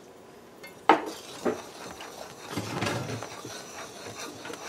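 Metal spoon clinking against the side of a metal karahi about a second in, with a smaller knock soon after, then scraping and stirring through thick, boiling coconut fudge mixture.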